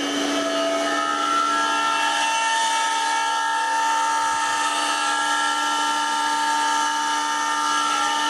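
Finned three-phase electric motor running at high speed on a Powtran variable-frequency drive set to about 143 Hz. It makes a steady whine of several tones, with turbulent air noise and a squeal from its cooling fan.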